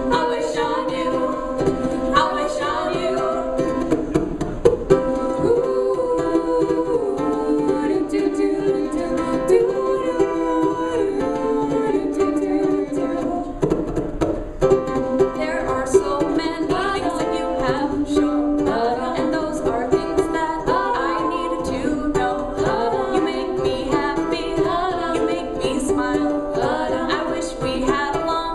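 Music playing: a melody that steps up and down over sustained notes.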